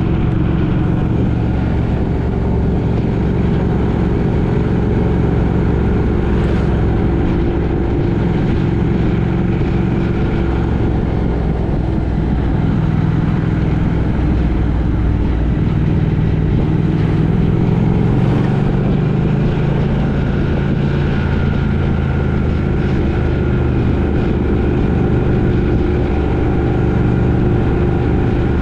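A road vehicle under way: a steady engine drone over road noise, the engine note shifting up and down slowly as the speed changes.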